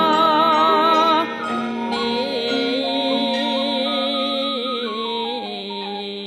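Music: a wavering, vibrato-laden melody over held accompanying tones, the texture thinning a little about a second in.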